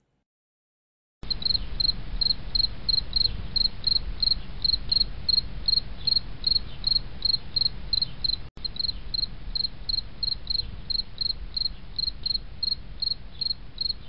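Crickets chirping in a steady rhythm, about three chirps a second, over a low hiss and rumble, starting a little over a second in. The sound briefly cuts out once, about eight and a half seconds in.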